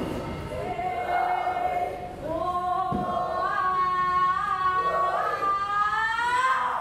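Wordless vocal singing in long held notes by more than one voice, the pitch bending and sliding upward near the end.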